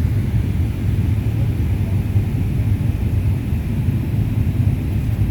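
Steady low rumble of a jet airliner's cabin in flight: engine and airflow noise heard from inside the passenger cabin.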